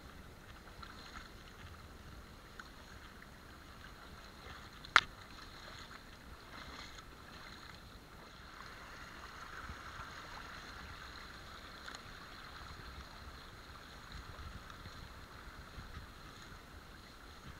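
Rubber wellington boots wading through a shallow, stony stream, the water sloshing and swirling around them with each step. A single sharp click about five seconds in.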